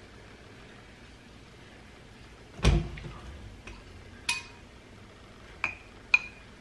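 A plastic soda-water bottle set down on the counter with a dull thud, then a long metal spoon clinking against glass: once as it is taken from a glass jug, then twice against a glass jar as stirring begins.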